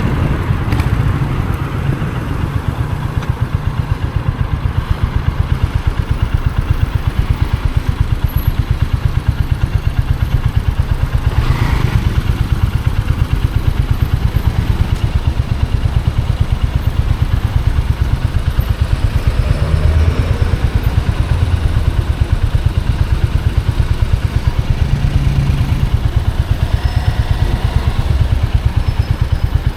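Royal Enfield Hunter 350's single-cylinder engine running steadily at low revs, its exhaust beating in even pulses. A brief higher-pitched sound comes in about twelve seconds in.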